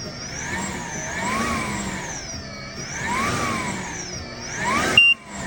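Inmotion P6 electric unicycle's hub motor whining as the wheel is run up and eased back repeatedly with no load, its pitch rising and falling about every two seconds, to check the freshly changed tire for wobble. Near the end it climbs sharply, cuts off abruptly, and a short high tone sounds.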